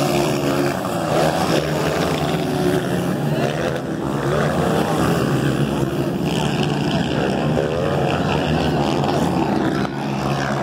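Several motocross motorcycle engines running hard at high revs, their pitch rising and falling as the throttle opens and closes.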